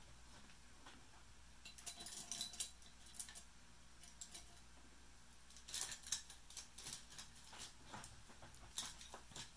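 Faint clicks and light clinks of small painting tools being handled, such as a brush and ink bottle. They come in three short clusters: about two seconds in, around six seconds in, and near the end.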